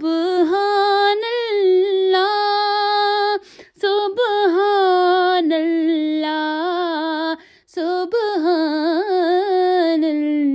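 A solo voice sings a Punjabi devotional song a cappella, holding long high notes with wavering melismatic turns. It sings three phrases, each cut off by a short breath.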